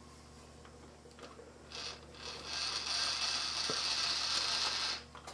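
Slitting saw on a milling machine cutting a slot into a collet blank: a steady, high-pitched cutting noise starts about two seconds in and stops shortly before the end, over the low steady hum of the machine.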